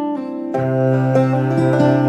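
Background instrumental music of held, plucked-sounding notes; a fuller accompaniment with a low bass note comes in about half a second in.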